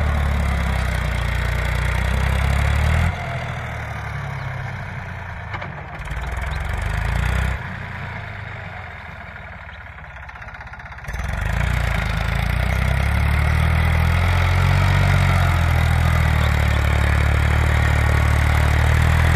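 Eicher 480 tractor's diesel engine running steadily as it pulls a rotary tiller through the soil. The drone fades about three seconds in and comes back strongly around eleven seconds.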